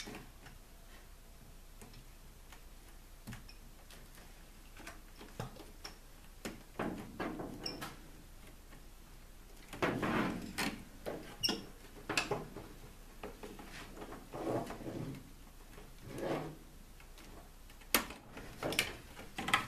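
A handheld PEX tubing cutter working through blue corrugated plastic electrical conduit: scattered crunches and rubs as the blade bites and the tubing is handled, with sharp clicks near the end.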